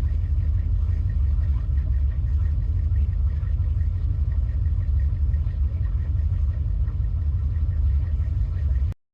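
Steady low rumble of a car's engine idling, heard from inside the cabin; it cuts off abruptly near the end.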